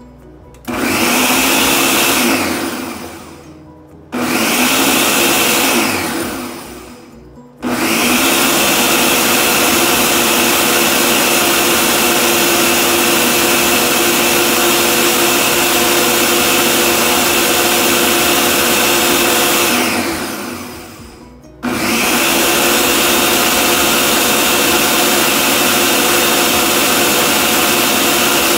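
Electric kitchen blender running in spurts on a mango and condensed-milk kulfi mixture. It switches on abruptly four times, and each time it is switched off its motor winds down with a falling whine. The longest run lasts about twelve seconds.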